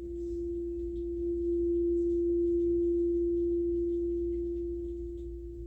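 A singing bowl sounding one sustained, steady pure tone that swells louder in the middle and slowly eases back, as in a sound bath.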